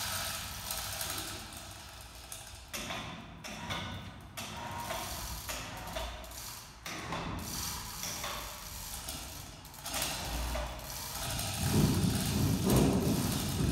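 Scattered metallic clicks, clinks and knocks from the overhead hoist chains as a bare aluminum boat hull hanging from them is rigged and handled. Near the end a louder steady low sound begins and keeps going.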